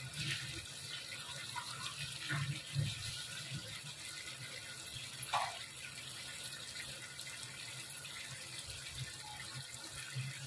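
Watery onion-garlic-chilli masala bubbling and spitting in a brass kadhai over a gas flame turned up high, with a steady bubbling and scattered small pops, one louder pop about five seconds in.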